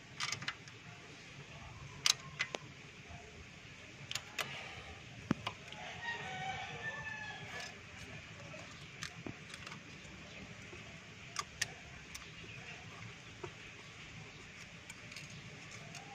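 Sharp metallic clicks and taps of a ring wrench and feeler gauge on the rocker-arm adjusting screws of a Mitsubishi 4G13 engine as the valve clearances are set. A rooster crows once in the background about six seconds in.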